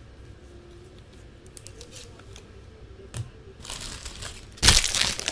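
Crinkling and rustling of trading-card packaging being handled by hand: faint scattered clicks at first, then rustling that builds into a loud crinkle near the end.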